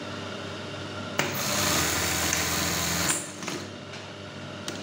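Brother 814 industrial buttonhole sewing machine running a test cycle: a steady motor hum, then about a second in the stitching starts with a loud, dense run of about two seconds that cuts off at the stop. The machine is being checked after adjusting the screw that sets its stopping speed, to cure a harsh bang at the stop.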